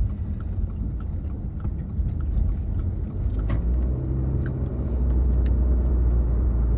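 Chewing and small mouth clicks while eating raw fish, over a steady low rumble that grows louder about two thirds of the way through.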